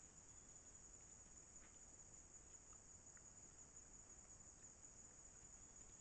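Near silence filled with a faint, steady, high-pitched insect drone, cricket-like, with a few faint ticks.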